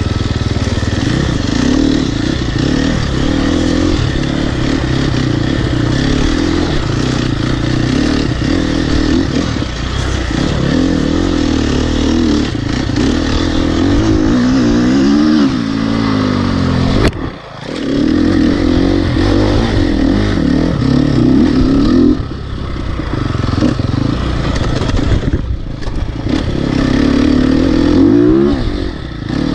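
Off-road motorcycle engine heard on board while racing, revving up and down as the rider accelerates, shifts and backs off the throttle. About halfway through the engine note drops away sharply for about a second before picking up again.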